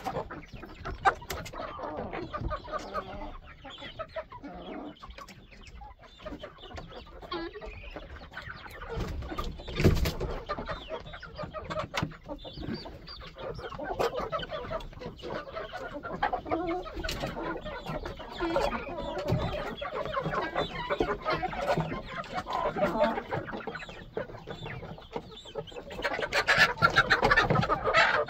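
A flock of chickens clucking continuously, with a single thump about ten seconds in and louder, busier calling near the end.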